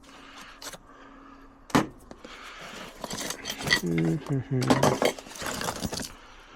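Metal hand tools clinking and clattering as they are rummaged through in a tool bag, with a sharp knock about two seconds in and a burst of clattering in the second half. A short low vocal murmur sounds in the middle of the clatter.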